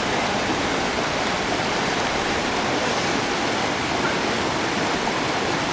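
Steady rushing noise, even and unbroken, with no distinct sounds standing out of it.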